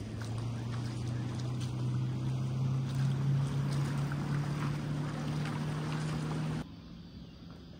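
Steady drone of a motorboat engine, its pitch creeping slowly upward, stopping abruptly near the end.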